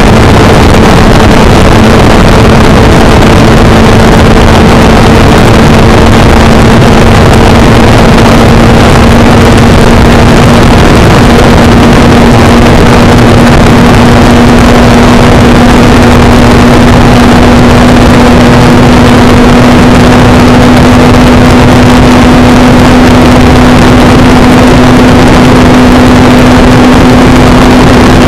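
Motorcycle engine and exhaust held at high speed under load, one steady note that slowly climbs in pitch, over a dense rush of wind noise.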